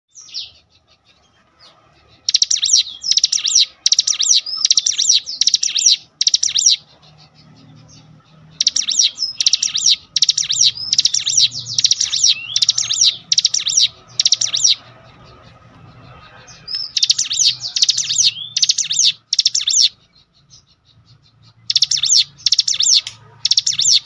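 A songbird calling in loud runs of sharp, high chirping notes, about two a second, in four runs broken by short pauses. This is a lure call meant to set a captive ciblek gunung singing.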